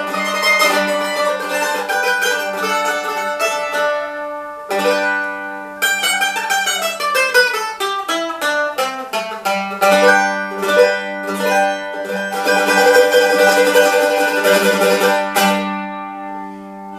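Restored 1905 Calace mandolin played solo: rapid picked notes ringing over a sustained low note, with a descending run partway through, dying away near the end.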